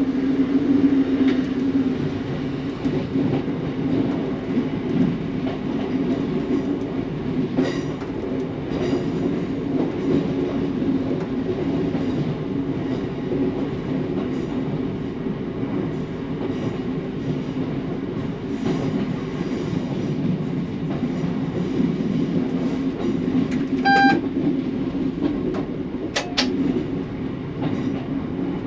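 Class 150 Sprinter diesel multiple unit running along the line: a steady underfloor diesel engine drone under wheel-on-rail rumble, with a few sharp clicks of the wheels over the track. A brief high squeak comes about 24 seconds in.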